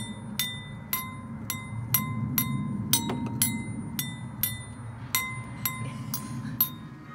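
Water-filled wine glasses struck one at a time with a metal utensil, about two taps a second, each ringing with a clear note, the glasses at slightly different pitches. A low steady rumble runs underneath.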